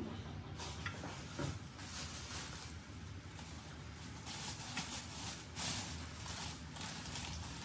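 Sauce bubbling in a wok: a steady hiss of small bubbles with a few faint pops.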